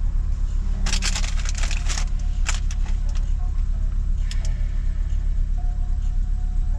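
Steady low rumble of a car's engine and road noise heard from inside the cabin. A quick run of crackling clicks comes about a second in, and two more single clicks follow later.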